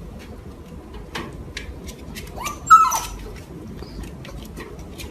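A dog gives one short, high-pitched cry a little past halfway through, the loudest sound here, over faint scattered clicks.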